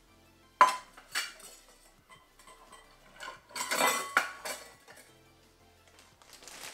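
Metal measuring cup clinking against glassware as porridge oats are scooped and tipped into a bowl. A sharp clink comes about half a second in, another about a second in, and a cluster of ringing clinks comes around four seconds in.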